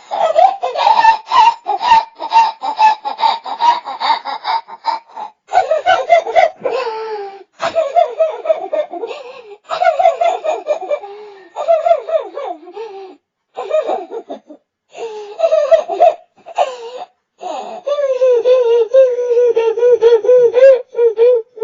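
A child crying and sobbing: high-pitched wavering wails broken by short catches of breath.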